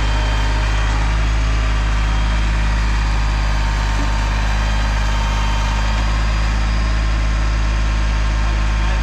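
Tractor engine running at a steady speed, close by, with no change in pitch.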